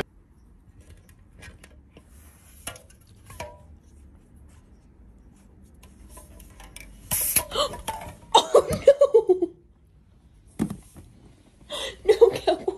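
A person laughing in two bouts, each a run of quick pulses falling in pitch, the first about halfway through and the second near the end. Before that, faint clinks of aluminium soda cans being pawed by a cat.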